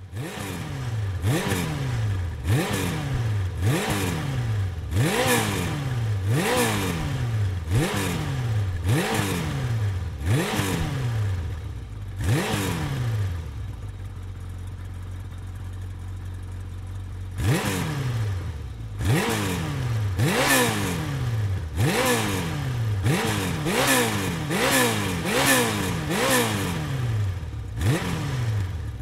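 Motorcycle engine being revved in quick throttle blips, a little more than one a second, each rising sharply in pitch and falling back. About halfway through it settles to a steady idle for a few seconds, then the blipping starts again.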